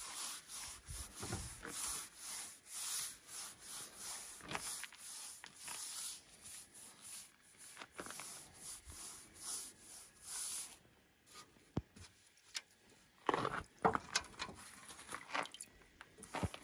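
Bristle paintbrush swept along rough-sawn wooden boards, brushing on dark stain in quick repeated strokes, roughly two a second. The strokes pause about eleven seconds in, with a few light clicks, then start again.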